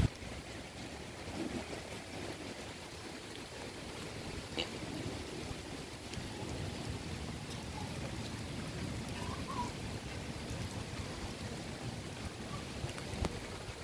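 Steady rain falling on leaves and grass: a soft even hiss with a few faint drip ticks.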